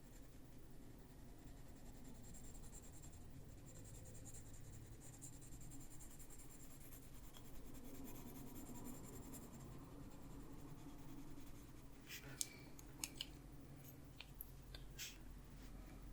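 Faint scratching of a Prismacolor colored pencil being worked over paper, layering colour, with a few light clicks near the end.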